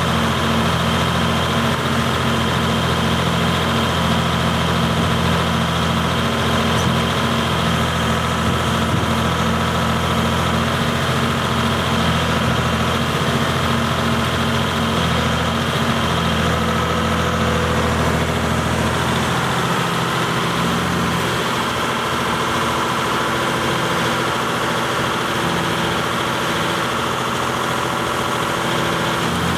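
Volvo EC210B excavator's diesel engine running steadily while the machine slews round on a lowbed trailer; about twenty seconds in its deep hum drops away and the note changes.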